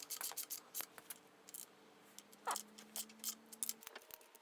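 Socket ratchet clicking in quick, irregular runs as bolts are run down on a Land Rover 2.25 engine during crankshaft and rear main seal fitting.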